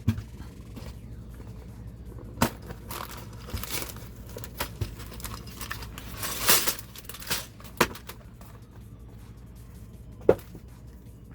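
Cardboard LEGO set box being opened and its contents handled: crinkling and tearing of packaging with several sharp snaps and knocks, the loudest near the end.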